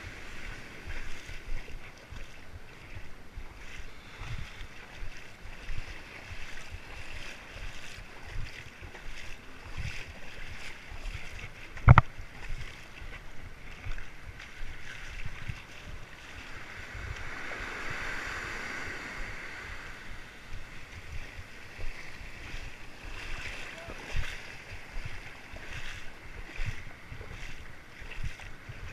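Shallow waves washing up and drawing back over sand at the water's edge, a hiss that swells and fades, with wind buffeting the microphone in low rumbles. A single sharp knock about twelve seconds in is the loudest sound.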